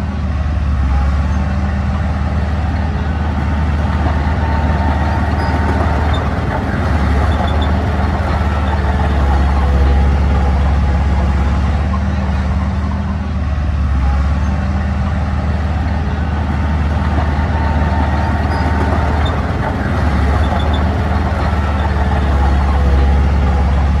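Diesel engine of earthmoving machinery (a mini bulldozer or dump truck) running steadily with a deep hum, its level swelling and easing slightly every few seconds.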